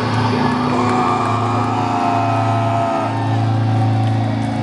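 Live metal band's amplified sound from the stage PA, heard loud from the crowd: a steady low drone with held higher tones above it that sag slightly in pitch.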